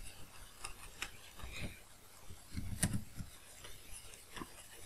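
Faint taps and scratches of a stylus writing on a tablet, with a sharper click a little before three seconds in.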